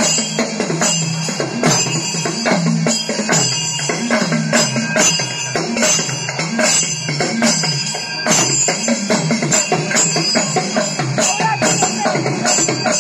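Edakka, the Kerala hourglass drum, played with a stick in a fast thayambaka rhythm: a steady stream of sharp strokes whose pitch glides up and down as the player squeezes the drum's lacing.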